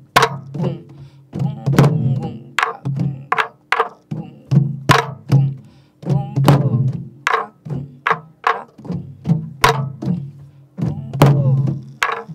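Sori-buk, the Korean pansori barrel drum, played with a wooden stick and the bare hand in a repeating jangdan rhythm pattern. Deep booming strokes alternate with sharp stick cracks.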